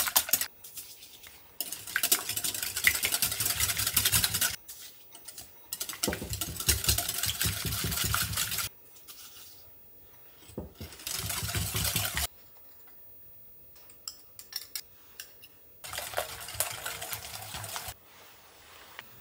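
Wire balloon whisk beating eggs in a glass mixing bowl, a fast clatter of strokes against the glass in four spells of a few seconds each, with short pauses between. The eggs are being beaten with sugar and honey into a batter.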